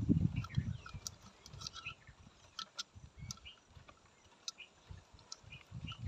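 Scattered short bird chirps over sharp little clicks and low rustling from hands knotting a rope around a clay toddy pot. The rustling falls away after about a second and returns near the end.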